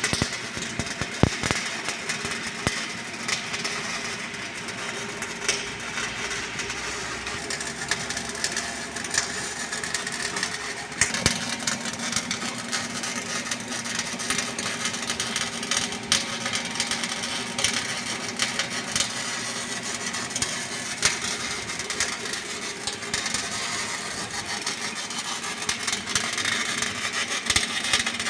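MIG welding arc crackling and spattering continuously, with frequent sharp pops. A steady low hum joins about eleven seconds in.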